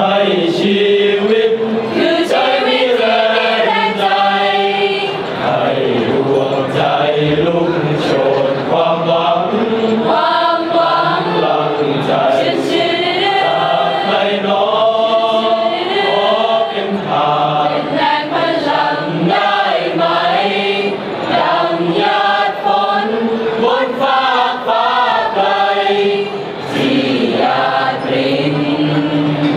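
Choir of police trainees singing in harmony, several voice parts moving together in a continuous song.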